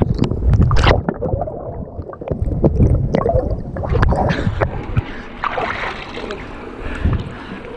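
River water rushing and splashing around an inflatable kayak in whitewater rapids, an uneven churning noise with wind buffeting the microphone.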